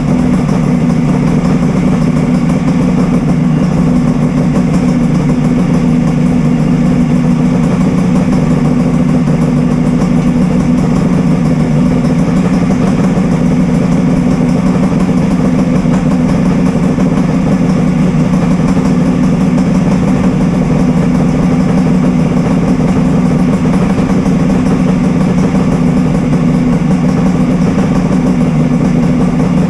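Kawasaki Mach III 500 cc air-cooled three-cylinder two-stroke engine, freshly rebuilt, idling steadily.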